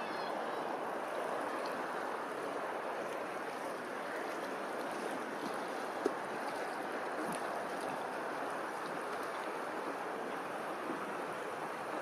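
Steady wash of open water, small waves lapping. A single short click about six seconds in.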